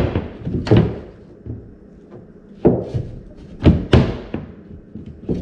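A series of irregular thunks and knocks, each ringing briefly, as a part is pushed and bumped into place inside a wooden plywood kayak hull.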